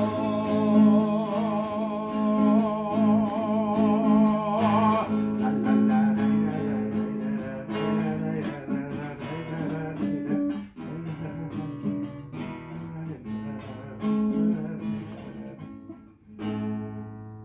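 A man's voice holds the song's last note with vibrato for about five seconds over a nylon-string classical guitar. The guitar then plays on alone, growing softer, and closes with a final strum near the end.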